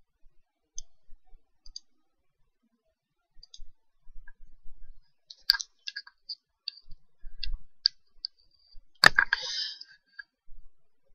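Scattered computer mouse clicks: a string of light single clicks, with one sharper, louder click about nine seconds in, followed by a short rustle.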